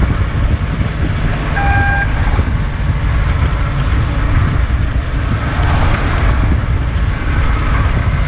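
Fishing boat's engine running under way, with wind buffeting the microphone in a steady loud rumble. A short beep sounds about a second and a half in.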